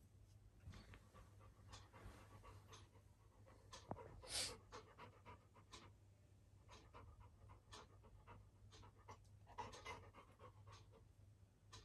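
Labrador retriever panting softly: a run of quick, uneven breaths, with one louder breath about four seconds in.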